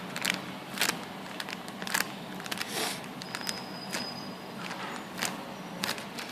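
Handling noise from squeezing a homemade squishy toy: scattered small clicks and rustles of fingers on the toy, over a faint steady hum.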